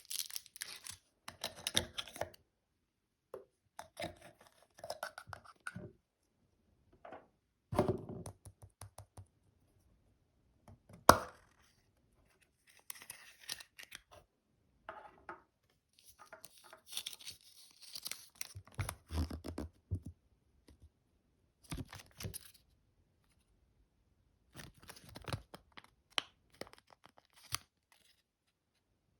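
Foil wrapper of a chocolate surprise egg being torn and crinkled by hand in short bursts, with a few dull thumps and one sharp click about eleven seconds in.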